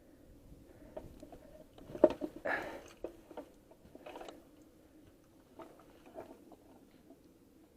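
Scattered handling noises in a small room: a sharp knock about two seconds in, a couple of short scuffs, and a few light clicks.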